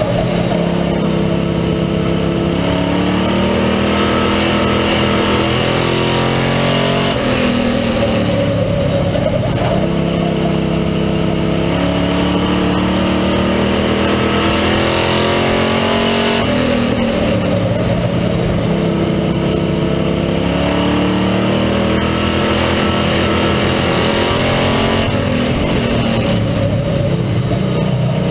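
Stock car race engine heard from inside the car's cabin under racing load. Its pitch climbs down each straight and drops off into each turn, about every eight or nine seconds, lap after lap. The driver says the engine is going south.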